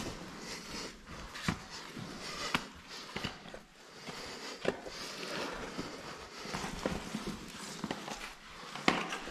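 A caver moving over rock: irregular knocks and scrapes of boots and gear against stone, with clothing rustle between them. The loudest knock comes near the end.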